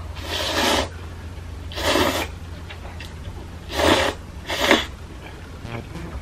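Cup ramen noodles slurped four times, each a short, loud rush of air and noodles, the last two close together.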